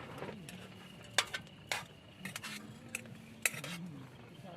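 Spoon or fork clinking and scraping against a pot or plate while eating: several sharp, unevenly spaced clinks.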